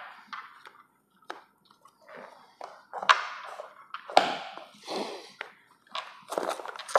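White cardboard phone box being slid out of its sleeve and opened by hand: a string of short scraping rustles of cardboard on cardboard, with a few light taps as the box parts are set down on the table.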